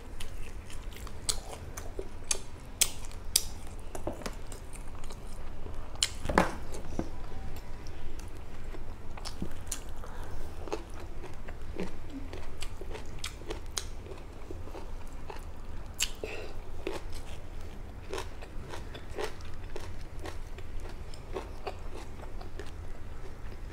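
A person chewing food close to the microphone while eating by hand, with many short, sharp mouth clicks at irregular intervals over a low steady hum.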